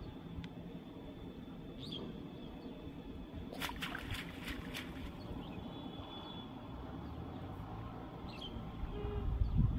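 Cast net being hauled by hand through shallow water: low sloshing and swishing, with a short run of splashes and drips a little under four seconds in as the net is lifted.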